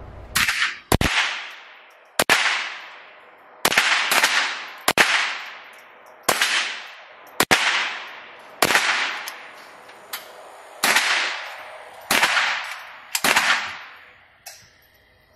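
Gunshots in an indoor shooting range: about a dozen sharp reports, roughly one a second, each ringing off in a long echo from the range's walls.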